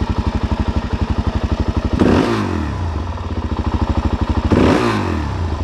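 Suzuki DRZ400S single-cylinder four-stroke engine idling with an even, rapid beat. The throttle is blipped twice, about two seconds in and again near the end, each time rising briefly in pitch and dropping back to idle.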